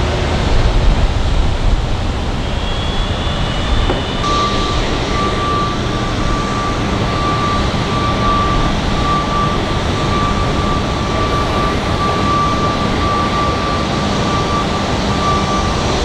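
Airport ramp noise: a steady low rumble of jet aircraft, joined about four seconds in by a steady high jet whine that holds on.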